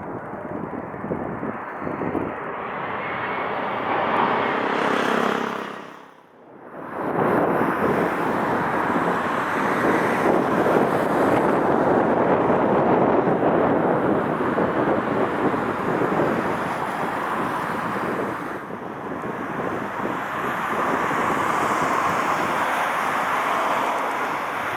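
Jet airliner engine noise with strong wind buffeting the microphone. The sound dips sharply and briefly about six seconds in, then returns as loud as before.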